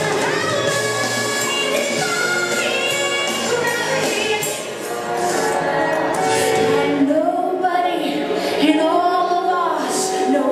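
Recorded song playing, a singer holding long notes that bend in pitch over a full backing track.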